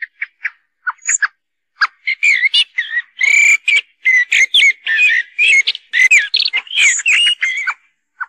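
Common blackbird: a few short, sharp call notes, then from about two seconds in a continuous run of fluty warbling song with rising and falling phrases and some high squeaky notes, ending just before the close. It is a lure recording for blackbird hunting.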